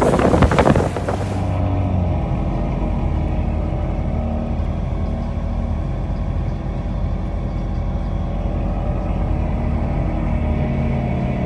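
About a second of loud wind and rushing water from a speeding boat, then a sudden cut to the steady low hum of a bus engine heard from inside the passenger cabin.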